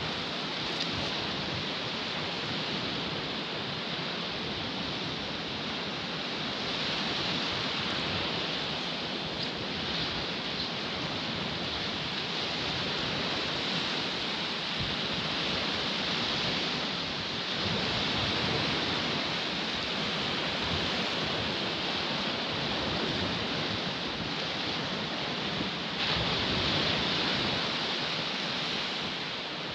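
Small waves breaking and washing up a sandy beach: a steady surf hiss that swells louder twice, about two-thirds of the way through and again near the end.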